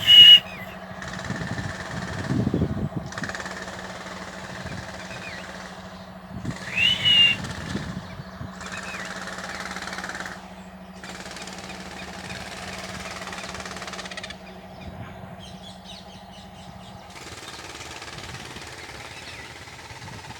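Two short, loud, harsh calls that rise in pitch, typical of a rose-ringed parakeet, one at the very start and one about seven seconds in. They sound over a steady low hum and stretches of hiss that start and stop abruptly.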